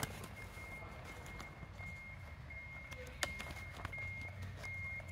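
A high electronic beeper repeating short beeps at an even pace, typical of a vehicle's reversing alarm, over a low hum. It comes with light clicks and rustles of a fabric bag being handled, and one sharp click about three seconds in.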